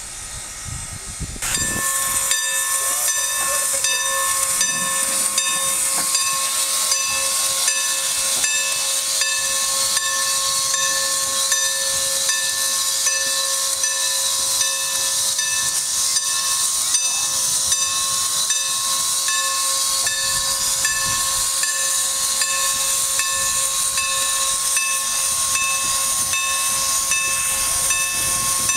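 Norfolk & Western No. 475 steam locomotive venting steam: a loud, steady hiss with a steady tone running through it, starting suddenly about a second and a half in.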